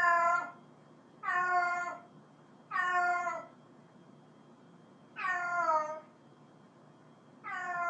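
A cat meowing repeatedly: five short meows a second or two apart, each bending down in pitch at the end. The last one starts near the end.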